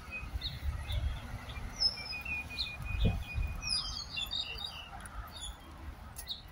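Birds chirping and calling in the trees: scattered short chirps, with a fast trill at one steady pitch for about a second and a half near the middle and a quick flurry of chirps just after it. Under them runs a low rumble on the microphone, with a thump about three seconds in.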